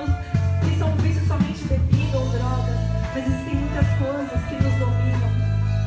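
Christian worship music with sustained bass notes and a melody line over them.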